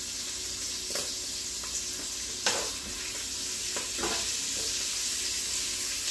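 Chopped bacon sizzling as it fries in an enamelled Dutch oven on medium-high heat. It is stirred with tongs, which knock against the pot a few times; the sharpest knock comes about two and a half seconds in.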